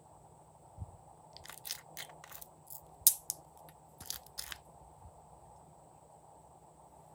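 Glossy slime being squished and kneaded by hand, giving a run of sharp clicking, crackling pops between about one and four and a half seconds in, the loudest about three seconds in, over a faint steady hiss.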